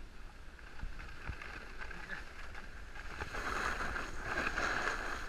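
Wind rumbling on the microphone, with the scraping hiss of a snowboard sliding over packed snow that swells about three seconds in.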